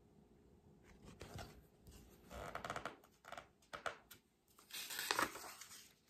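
Paper pages of a picture book rustling and crinkling as the book is handled and a page is turned, in several short bursts.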